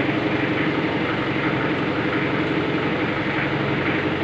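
TCM forklift's engine idling steadily, an even, unchanging drone.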